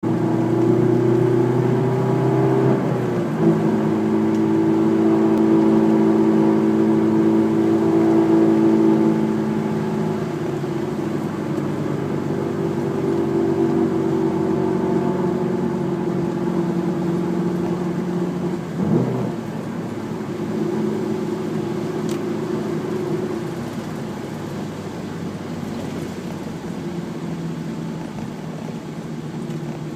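Honda S2000's four-cylinder engine running steadily with an unidentified weird noise from the engine bay. Its pitch shifts briefly twice, a few seconds in and again about midway.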